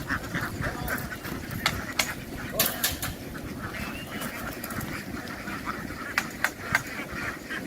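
Large flock of ducks quacking together in a dense, steady clamour, with a few sharp clicks.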